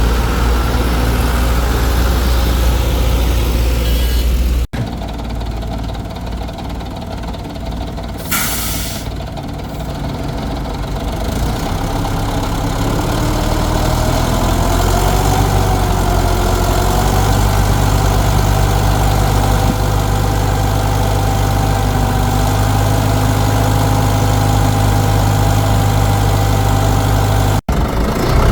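Excavator's diesel engine running steadily, with a short hiss about a third of the way in. The engine grows louder from about halfway and holds a steady drone, broken by two abrupt breaks.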